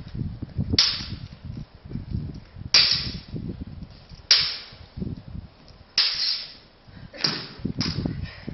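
Stage-combat broadswords clashing blade on blade about six times, each strike sharp and ringing briefly.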